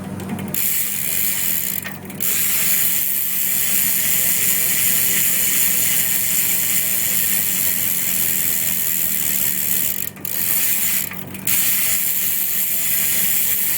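Profile BMX rear hub freewheeling, its pawls giving a loud, fast, continuous ratcheting buzz that breaks off briefly about two seconds in and twice more near the end.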